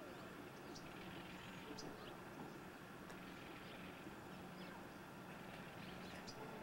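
Faint outdoor ambience: a small bird giving short, high chirps every second or so, over a low steady hum.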